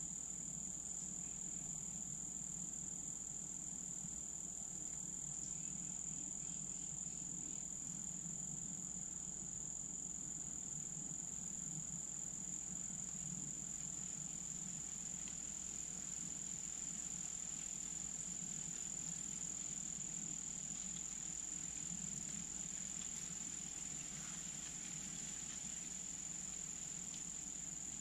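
Steady high-pitched chorus of insects, one unbroken trill.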